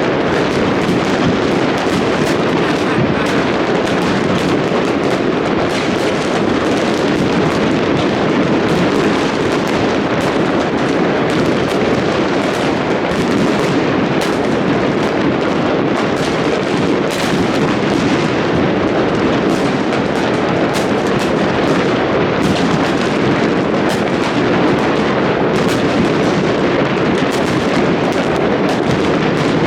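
A dense, unbroken barrage of fireworks and firecrackers going off at once: a continuous crackle of many overlapping bangs at a steady loudness, with no pause.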